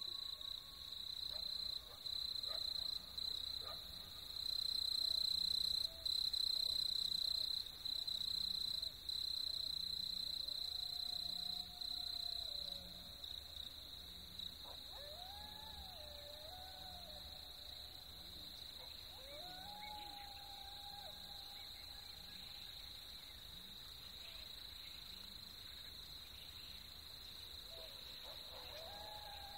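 Wild soundscape recording: insects trilling in a steady high-pitched chorus, louder and in long pulses for the first dozen seconds, then softer and unbroken, with a few lower calls that slide up and down in pitch past the middle.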